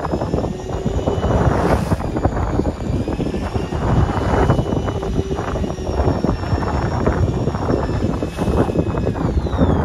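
Fishing boat's engine running with a steady low drone, with faint high whining tones that waver slightly in pitch.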